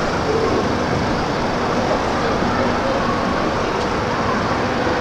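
City street traffic noise: a steady wash of passing vehicles.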